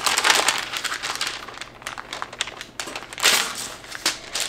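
Parchment paper crinkling and rustling under hands that press and pull apart a ball of sourdough pretzel dough, irregular, with the loudest rustle about three seconds in.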